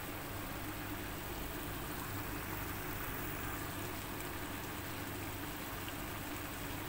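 Chicken simmering in curry liquid in an aluminium wok, a steady bubbling hiss as it comes to the boil, with a faint low hum underneath.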